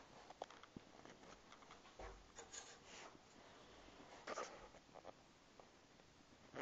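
Near silence: room tone with a few faint rustles and light taps, mainly about two seconds in and again just after four seconds.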